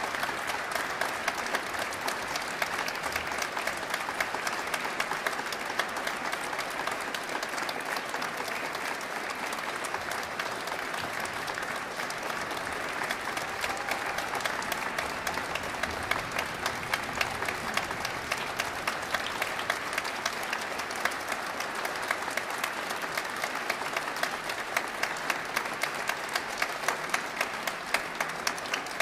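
Audience applauding steadily in a concert hall, a dense wash of clapping, with sharper individual claps close by that come more often near the end.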